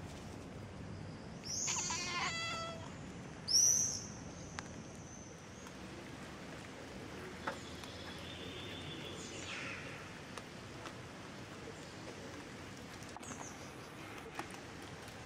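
Two short high-pitched animal calls, the first about a second and a half in and the second, louder and shorter, near four seconds in, over steady outdoor background noise.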